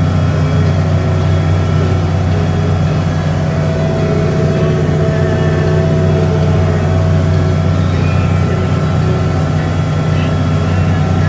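Tractor engine running steadily under load, heard from inside the cab, with a Knight 8124 manure spreader running behind it and throwing out manure.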